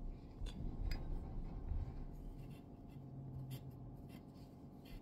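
Steel wool rubbing against a straight razor's blade, scrubbing off rust and grime, with a few faint clicks.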